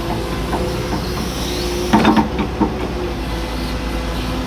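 Hitachi excavator's diesel engine running steadily while it pushes a timber piling into a dump truck bed, with a short cluster of knocks about two seconds in as the log shifts.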